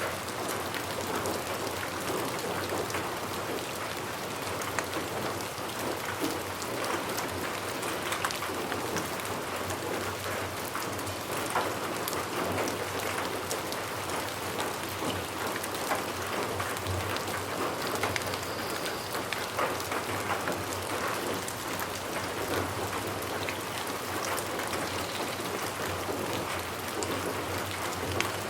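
Steady rain falling and pattering on a surface, with many small drop ticks over a continuous hiss.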